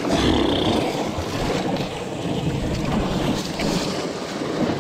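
Wind buffeting the microphone over the steady wash of the sea against the rocky shore.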